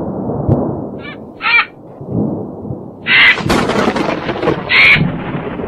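Cartoon bird squawking in short, harsh calls several times over a steady rumbling, crashing noise.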